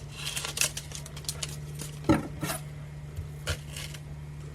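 Kitchen things being handled on a counter, a cutting board and utensils: a few scattered knocks and clinks, over a steady low hum.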